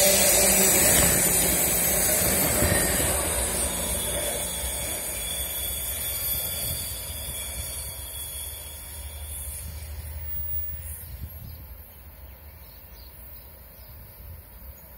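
Vitória–Minas passenger train's cars rolling by on the rails, the wheels running loud at first, then fading steadily over about twelve seconds as the train draws away into the distance.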